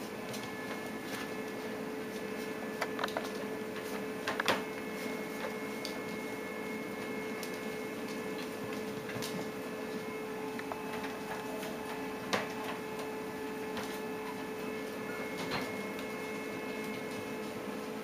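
Steady low electrical hum with a few faint higher whines, broken by a handful of short, light clicks and taps.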